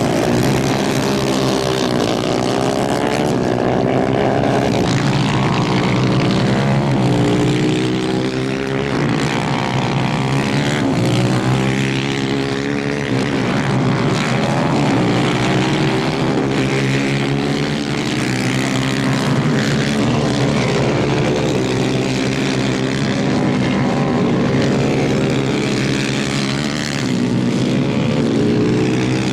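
Engines of several 250 cc racing karts at full race pace, their pitch climbing and falling over and over as they rev up and back off around the dirt track.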